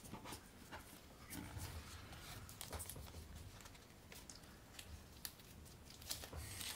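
Faint rustling and a few light clicks of a Foldscope's thin card parts being folded, creased and tucked by fingers.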